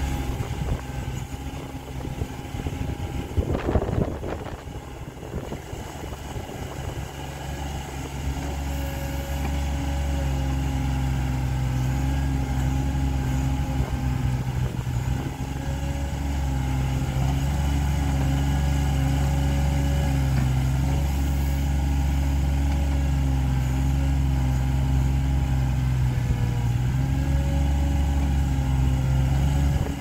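Komatsu PC30-5 mini excavator's three-cylinder 3D84 diesel engine running steadily as the machine digs, getting louder about ten seconds in and holding there. A short clatter of knocks comes about four seconds in.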